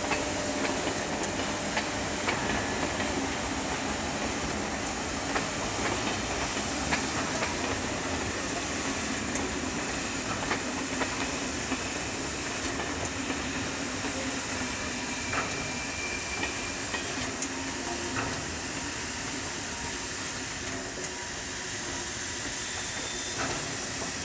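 Steady hiss of steam from the standing SNCF 241P Mountain-type steam locomotive 241P17, with scattered light clicks and knocks.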